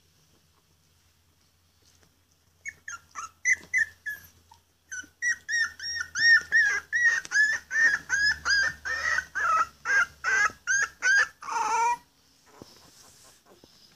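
Four-week-old West Highland Terrier puppy squealing and yelping in a rapid run of high-pitched cries, about two a second, an unhappy puppy. The cries start about three seconds in and stop about twelve seconds in, and the last one slides lower.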